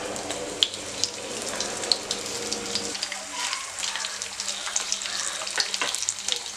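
Sliced raw potatoes sizzling and crackling in hot oil in a non-stick frying pan, with more slices being dropped in during the first few seconds.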